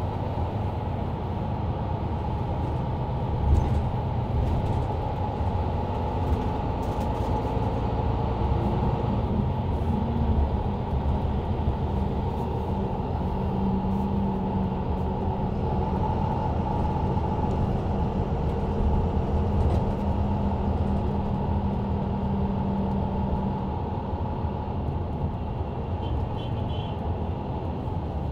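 Interior of a Mercedes-Benz Citaro C2 LE bus under way, heard from the rear seats: its diesel engine and ZF Ecolife automatic gearbox run steadily over road noise. A steady engine drone holds through the middle of the stretch.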